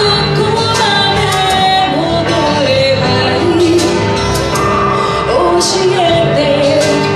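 A woman singing a J-pop ballad live into a microphone over a recorded instrumental backing track, amplified through the hall's speakers, with notes held and gliding.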